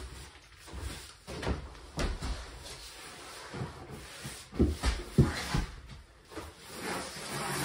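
Broom sweeping and scraping on a bare wooden subfloor while flooring is pulled up, with irregular knocks and a couple of heavier thumps about five seconds in.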